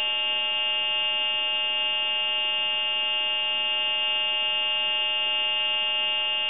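Steady, unbroken hum with many overtones on a time-and-temperature recording line, heard over the telephone line; it comes from faulty equipment at the recording service's end, not from the telephone. It stops abruptly near the end as the recorded announcement resumes.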